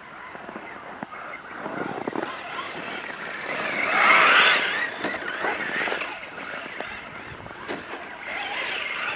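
Electric 1/10-scale RC Ford F-150 Raptor truck with a VXL brushless motor driving fast over packed snow. Its motor and gear whine rises and falls with the throttle over the hiss of the tyres, and is loudest as the truck passes close about four seconds in.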